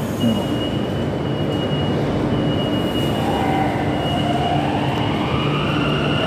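Metro train running, with a steady hum and a steady high tone; about halfway through, its motor whine starts rising in pitch as the train gathers speed.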